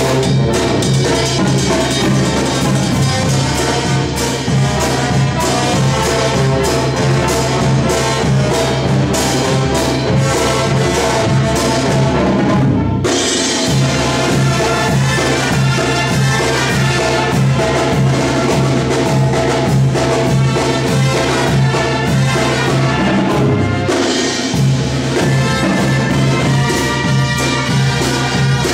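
Mexican brass band playing live: a sousaphone bass line with bass drum and timbales under the brass. The low bass notes drop out briefly twice, about halfway through and again near the end.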